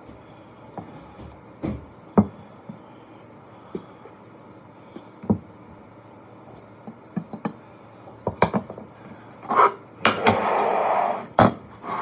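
Scattered clinks and knocks of dishes and cutlery being handled, coming more often near the end, with a longer scraping or rustling noise lasting about a second just before a final knock.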